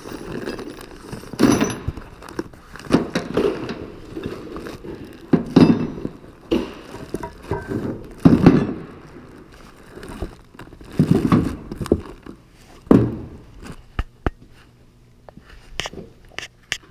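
Grille guard kit being unpacked by hand: a cardboard box and plastic bags of metal mounting brackets and bolts being handled, giving irregular rustling, crinkling and knocks. Near the end there are a few short, sharp clicks.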